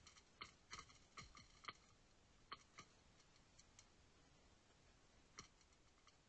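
Faint, irregular sharp clicks and ticks: several close together in the first three seconds, a few lighter ones after, and one more near the end.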